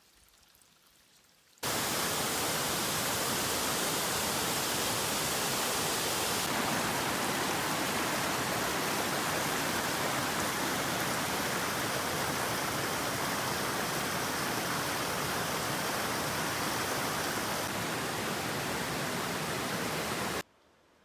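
Steady, loud rush of moving water, starting suddenly about a second and a half in and cutting off suddenly shortly before the end.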